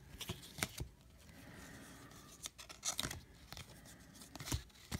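1998 Bowman baseball cards being thumbed through one by one: short flicks and slides of card against card, a scattering of soft clicks.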